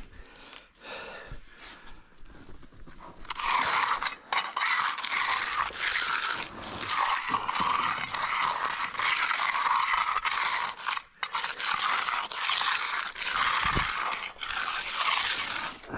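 A metal finishing tool scraping across fresh concrete in repeated strokes, starting about three seconds in.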